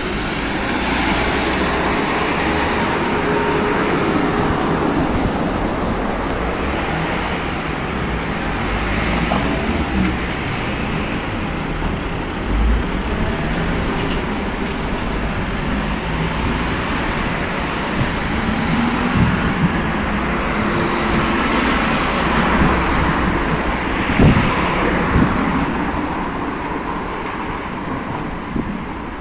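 Steady city street traffic noise, with vehicles passing and the sound swelling and easing as they go by.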